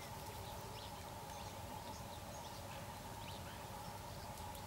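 Rural outdoor ambience: scattered short bird chirps and quick rising and falling calls over a steady background hum.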